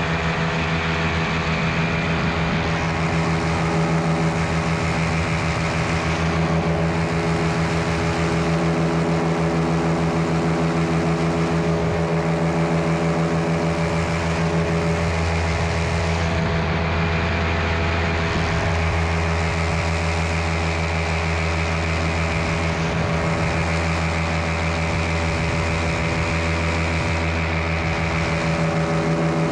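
Miniplane Top 80 paramotor's single-cylinder two-stroke engine and propeller running steadily in flight, holding an even pitch.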